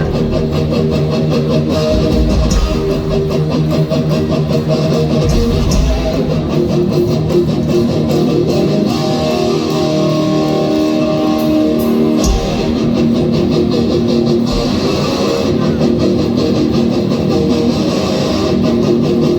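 A punk rock band playing a song live, loud and continuous, with electric guitars.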